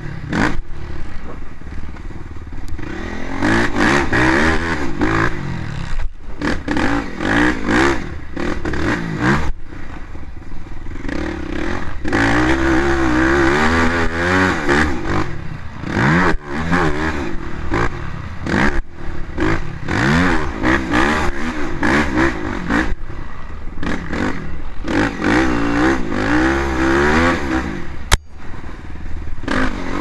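Dirt bike engine ridden hard on a rough trail, its note climbing in pitch again and again as the rider accelerates through the gears, dipping briefly each time the throttle is shut. Wind rushes over the microphone and the bike clatters over the bumps.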